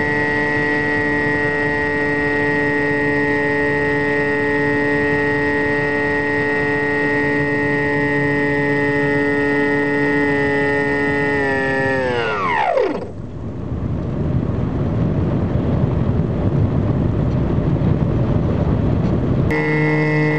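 Model airplane's motor running with a steady whine, heard from on board; about twelve seconds in it is throttled off, its pitch sweeping down to nothing, and wind rushes past the plane as it glides, until the motor cuts back in suddenly near the end.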